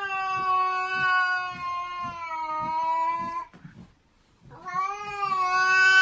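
Domestic cat yowling: two long, drawn-out, steady-pitched yowls with a short gap between them, the second starting about four and a half seconds in.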